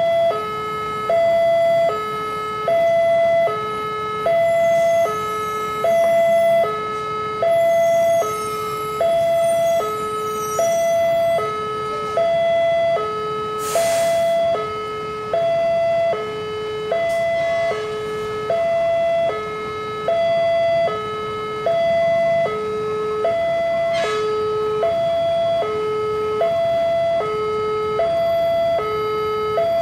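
Railway level-crossing warning alarm sounding a steady high-low two-tone signal, changing pitch about once a second, which warns that a train is approaching.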